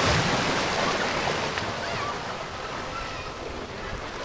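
Surf washing against rocks: a steady rush of water, swelling at the start and easing a little.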